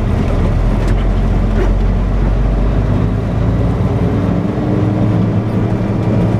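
Semi truck's diesel engine running at low speed, heard from inside the cab. About halfway through, a steady tone comes in and slowly rises in pitch as the engine picks up revs.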